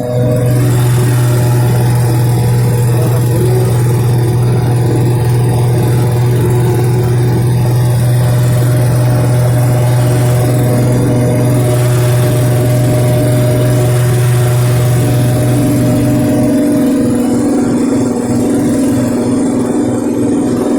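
Motor-driven grass chopper machine running steadily with a strong low hum; about four seconds before the end the hum shifts to a higher pitch.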